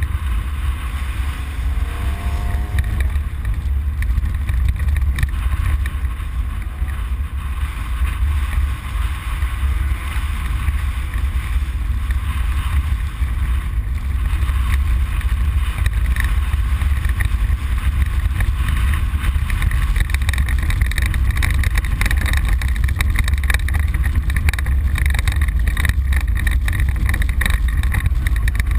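Ford Explorer prerunner driven off-road, heard from inside the cab: a steady deep engine rumble under wind and road noise. About two-thirds of the way in, the knocks and rattles get busier.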